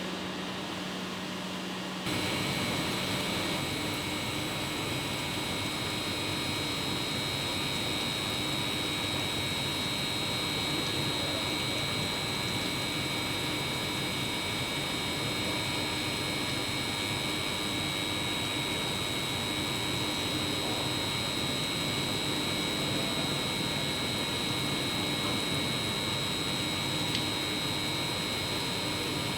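CG R 600 300 CNC grinding machine running: a steady noise with a high, even whine and a fainter low hum over it. The sound steps up abruptly about two seconds in and then holds steady.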